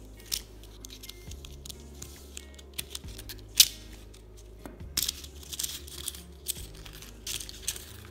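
Handling noise from a metal mesh watch strap and a cardboard display card being picked up and moved: light rustling with scattered clicks, one sharp click about three and a half seconds in, over steady background music.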